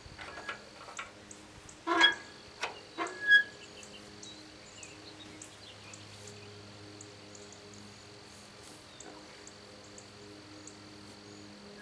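Several metal knocks and clanks from a vintage Allis-Chalmers side-delivery hay rake being adjusted by hand at its lever and tine springs, one with a short ringing ping, in the first few seconds. After that, a steady drone of insects and a faint low hum.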